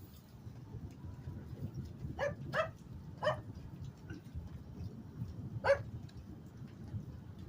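A dog barking four times: three short barks close together about two seconds in and a fourth a couple of seconds later, over a steady low background rumble.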